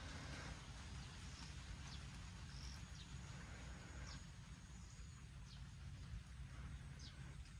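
Faint riverside ambience: scattered short, high chirps of small birds and a thin high insect-like tone for a few seconds in the middle, over a low steady rumble.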